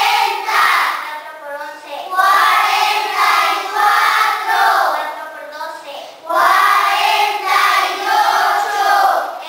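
A class of schoolchildren chanting their multiplication tables aloud in Spanish, in unison, in a sing-song chorus. The chant comes in phrases of a few seconds with short breaks between.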